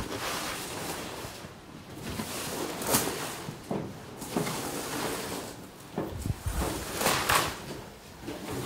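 Broom sweeping and scraping across a dirt floor in irregular swishes, the strongest about three seconds in and again around seven seconds.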